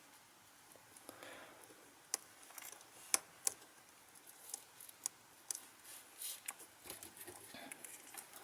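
Faint scattered clicks, ticks and light scraping of small phone parts and tools being handled and fitted during a smartphone repair.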